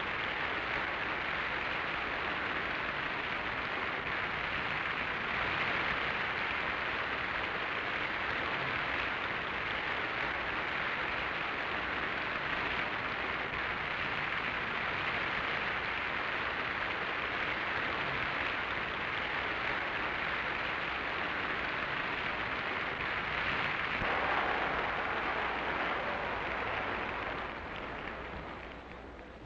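Concert-hall audience applauding in a steady, dense clapping that fades away near the end.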